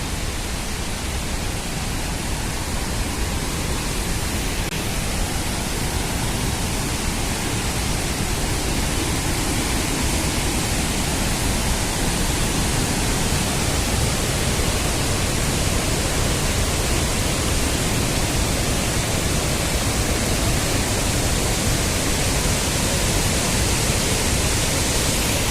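Waterfall's rushing water: a steady, even roar that grows slowly louder.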